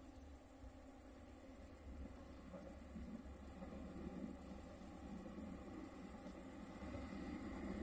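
Crickets chirring, a steady, high, even buzz. From about three seconds in, a low rumble slowly grows louder: an approaching passenger train.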